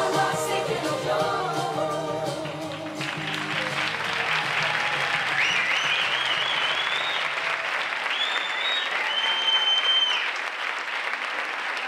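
A pop song with singing ends about three seconds in, and the audience breaks into applause with some long, high-pitched cheering.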